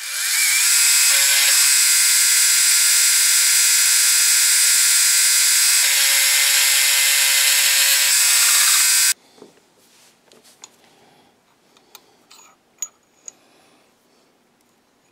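Milling machine end mill cutting a groove along a steel tube: a loud, steady, high-pitched cutting whine with several tones that stops abruptly about nine seconds in. Afterwards, a few light clicks as the grooved tube and chips are handled.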